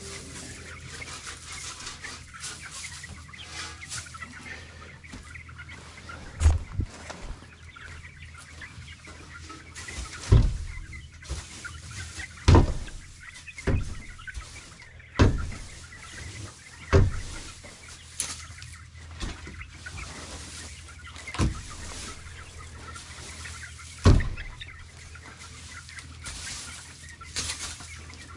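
Chickens clucking, broken by about eight heavy thumps a couple of seconds apart.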